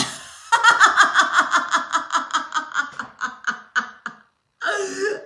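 A woman laughing hard, a long run of quick, even ha-ha pulses that fade away, then another burst of laughter near the end.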